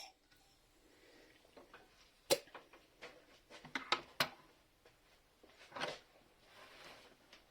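A compressed-air hiss cuts off right at the start, followed by faint scattered clicks and light knocks of handling a cylinder head and tools, the sharpest about two and four seconds in.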